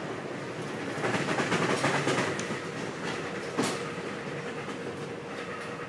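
Amtrak Pacific Surfliner passenger car in motion, heard from inside: steady rail running noise with wheel clatter, louder for a couple of seconds about a second in, and a single knock a little past halfway.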